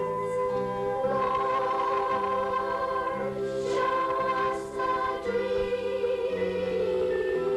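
Youth choir singing held chords in a song.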